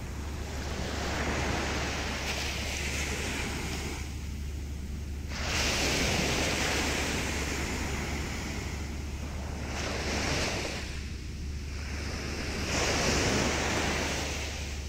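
Sea waves surging and breaking against shoreline rocks, the rushing wash swelling and fading four times, with a steady low rumble underneath.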